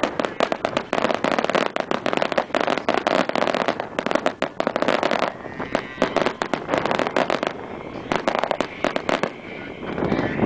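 Aerial fireworks bursting in rapid volleys of crackling pops and bangs. The crackle is dense for about the first five seconds, then thins to scattered cracks.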